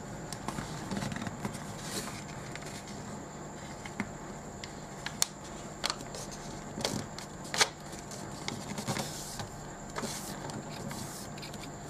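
Sheet of 80 g/m² A4 paper being handled, folded and creased by hand: soft rustling with several sharp crinkles and snaps, the loudest a little past halfway, over a steady low hum with a thin high whine.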